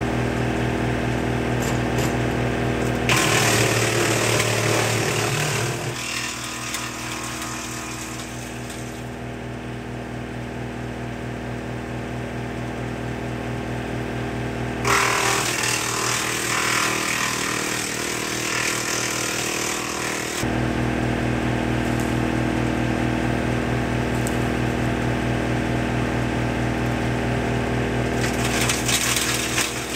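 Woodmaxx MX-8800 wood chipper, PTO-driven by a John Deere 2032R 32 hp diesel tractor, running steadily and chipping evergreen branches in three loud bursts: a few seconds in, for several seconds around the middle, and near the end. The steady engine hum sags under each load of branches.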